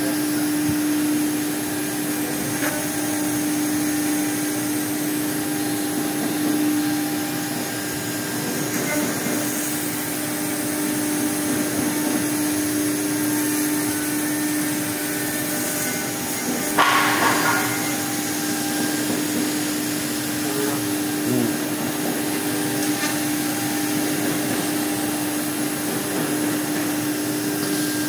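A Blue Elephant 2131 ATC CNC router's spindle runs steadily, its bit cutting letter shapes into a board, with a constant hum under the cutting noise. About 17 seconds in, the cutting briefly gets louder and rasping.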